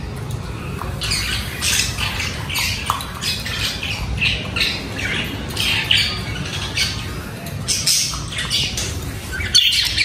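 Budgerigars chattering and squawking in a run of short, high-pitched calls that starts about a second in.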